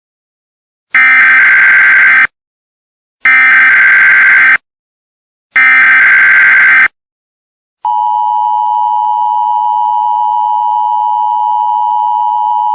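Emergency Alert System tones: three loud bursts of SAME header data, a harsh digital screech of about a second and a quarter each, spaced about a second apart. About a second after the third burst, the steady two-tone EAS attention signal begins.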